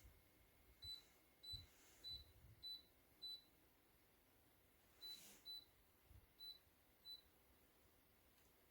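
A run of short, high electronic beeps, nine in all: five evenly spaced about half a second apart, then four more spaced unevenly after a pause. A few faint low thumps come between them.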